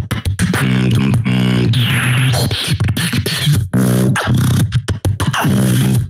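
Solo beatboxing into a handheld microphone: deep, held bass tones in short phrases, cut up by sharp kick and snare-like mouth percussion, with a brief hissing sound about two seconds in.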